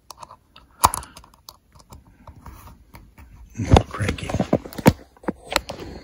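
Scattered clicks, knocks and rustles of hands handling test leads and ignition wiring on an outboard's switch box, with a burst of knocks and clicks around four seconds in.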